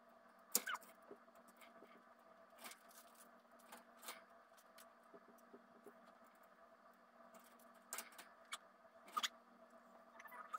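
Scattered light clicks, knocks and rustles of accessories and bedding being handled and set in place in a wire-mesh pet cage, over a faint steady hum. The sharpest knock comes about half a second in, and a few more cluster near the end.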